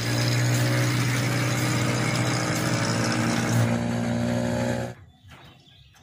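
An engine running steadily with a low, even hum, with no revving. It cuts off suddenly about five seconds in, leaving only faint background noise.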